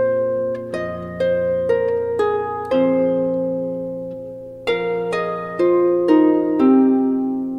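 Background instrumental music of plucked, harp-like notes, each struck and fading, over held low notes.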